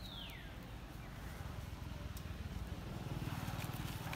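A baby macaque gives a high cry that falls steeply in pitch over about half a second, with a fainter falling cry about a second later. From about three seconds in, a low wind rumble on the microphone grows.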